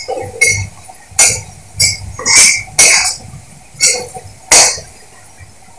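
Metal spatula scraping and knocking against a kadhai while spiced onions are stirred: about seven or eight sharp strokes at an uneven pace, stopping about a second before the end.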